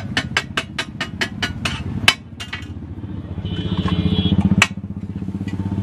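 Metal spatula chopping food on a large flat iron griddle: a fast, even run of metallic taps, about five a second, ending with one hard strike about two seconds in. After that a vehicle engine rumble builds and cuts off suddenly.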